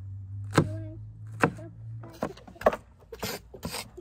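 Cleaver chopping green pepper on a wooden cutting board: a series of separate sharp knife strikes on the board. A low steady hum runs underneath and stops about two seconds in.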